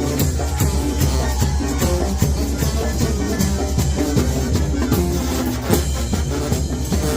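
Sinaloan-style banda brass band playing live: brass over a low, sustained bass line, with drums keeping a steady beat.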